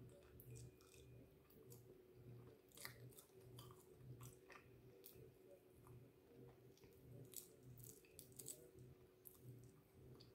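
Faint close-up chewing and mouth clicks of someone eating barbecue chicken wings, with scattered soft clicks, over a steady low hum.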